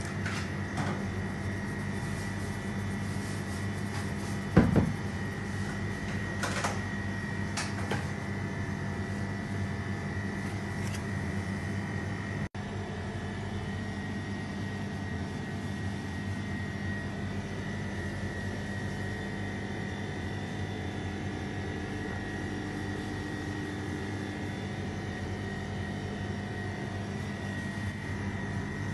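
Steady mechanical hum of running kitchen equipment, a low drone with a thin high whine over it. A single loud knock comes about five seconds in and a few light clicks follow, and the sound cuts out for an instant about halfway through.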